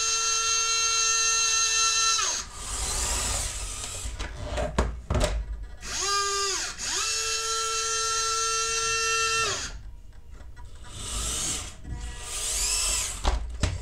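Electric motor and gearbox of a radio-controlled Bruder Cat soil compactor model whining at a steady pitch, stopping about two seconds in. It starts again about six seconds in with a quick rise and fall in pitch, then runs steady for a few seconds. Shorter hissing whirs come in between and near the end, with a few clicks at the very end.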